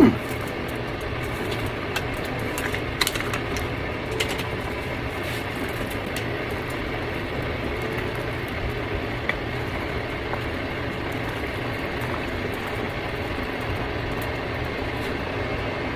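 A steady mechanical hum, with a few faint clicks or taps now and then.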